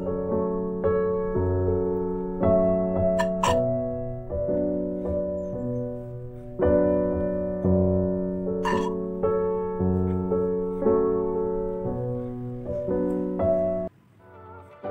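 Background piano music: a gentle tune of struck notes and chords. A few short clicks stand out about three and nine seconds in, and the music drops away just before the end.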